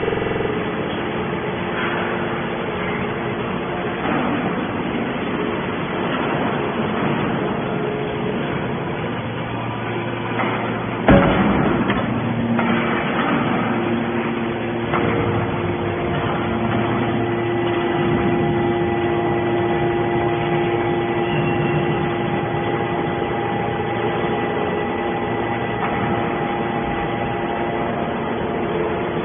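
Hydraulic scrap metal baler running: a steady machine hum carrying several steady tones, with one loud bang about eleven seconds in.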